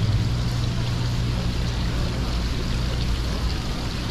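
Steady low hum with running, trickling water from the pumps and aerators of live-seafood tanks.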